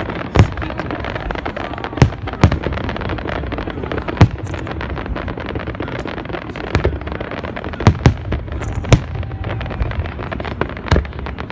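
Fireworks exploding: sharp bangs at irregular intervals, every second or two, over a continuous low rumble of distant shells and crackle.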